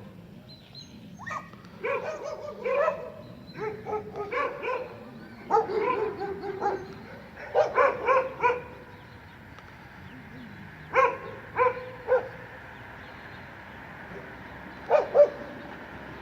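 Dog barking in short clusters of a few sharp barks, with pauses of a second or more between the clusters.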